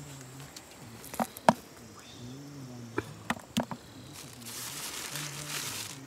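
Five sharp knocks, the loudest about a second and a half in, over low murmuring voices, then a hiss lasting about a second and a half near the end.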